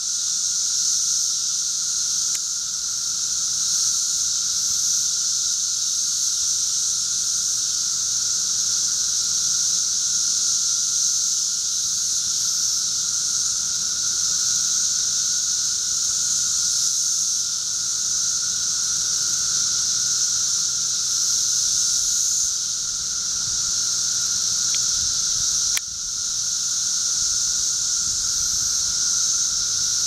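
Chorus of 13-year periodical cicadas: a steady, unbroken high-pitched buzz with a lower, steady whine beneath it.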